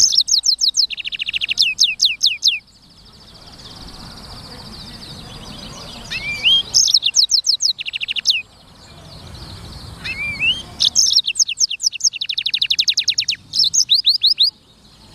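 Blackthroat (black-throated canary) singing: three long bursts of song, each a fast trill of repeated high notes and sweeping whistled notes, with short pauses between.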